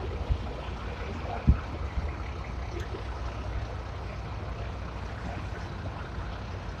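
Ikarus 280 articulated bus's diesel engine rumbling low and steady as the bus pulls in to the stop, with a single sharp thump about a second and a half in.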